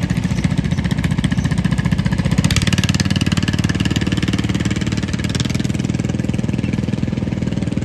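Riding lawn mower's small engine running steadily, its exhaust a rapid, even chatter of firing pulses.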